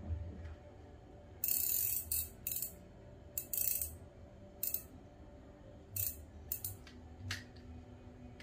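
Daiwa Emeraldas Air 2508PE-H spinning reel worked by hand, giving a string of short ratcheting bursts from its mechanism, the first and loudest about a second and a half in. The owner finds the used reel still smooth, like new.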